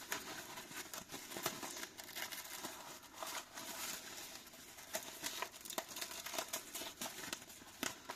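Quiet handling of a nylon tourniquet pouch with hook-and-loop panels: fabric rustling and scratching of the hook-and-loop, with scattered small clicks.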